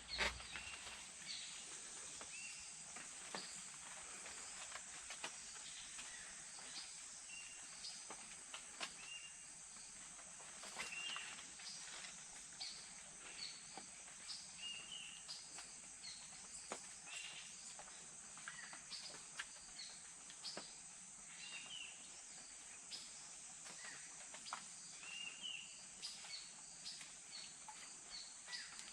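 Outdoor nature ambience: a steady high-pitched insect drone with many short rising chirps and a few scattered faint clicks.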